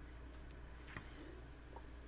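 Quiet room tone with a steady low hum, a faint click and then a sharper single click about a second in.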